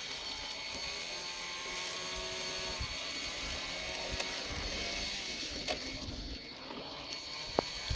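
Model aircraft motor and four-bladed propeller of a 16mm-scale propeller-driven model railcar running at speed, its pitch sliding up and down as the car moves along the track. There is a short sharp click near the end.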